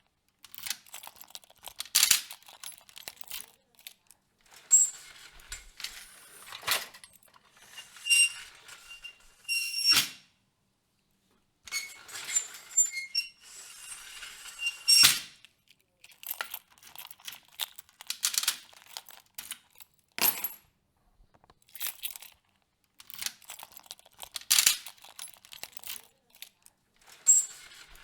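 Keys jangling and turning in the lock of a metal security gate, and the gate rattling as it is opened and closed: a run of sharp metallic clicks and clanks with ringing metal between them, the loudest clanks spaced a few seconds apart.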